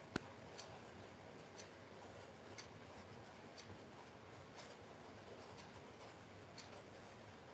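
Near silence: room tone with faint, evenly spaced ticks about once a second, and one sharp click just after the start.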